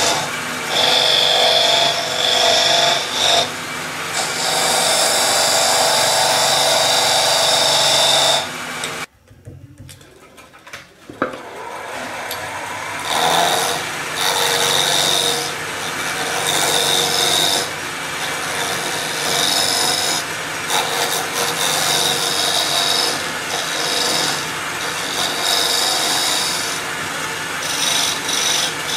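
Wood lathe spinning a wooden blank while a hand-held turning tool hollows out its end, a rough scraping cut that swells and eases as the tool bites. It drops off briefly about nine seconds in, then carries on.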